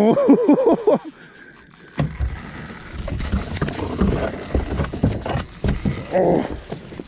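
A short, loud, wavering call in the first second, its pitch bending up and down. Then, from about two seconds in, water sloshing and knocking against a small boat's hull, with rod-handling noise.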